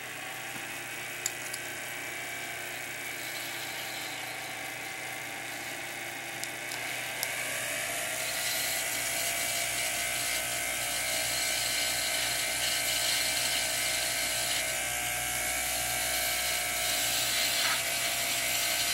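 Jeweler's lathe running steadily while a hand graver cuts the spinning brass stock, a humming whine with a high hiss over it. The pitch rises a little about seven seconds in and then holds.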